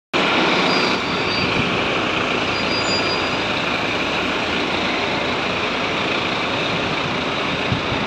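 Scania fire truck's diesel engine running as the pumper pulls away slowly, a steady, even noise with street traffic mixed in, cutting in suddenly at the start.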